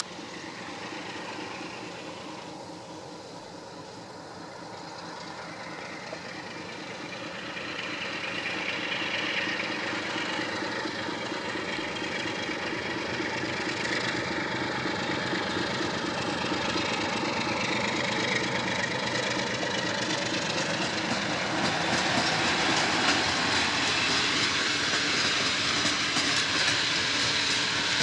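Electroputere LDE2100 (060-DA) diesel-electric locomotive's Sulzer engine running under power as it hauls a passenger train, getting steadily louder as it comes closer. In the second half the clatter of the coaches' wheels on the rails builds up as they roll past.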